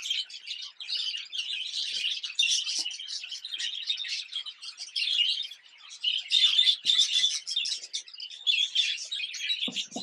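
A flock of budgerigars chattering and chirping continuously, many birds at once.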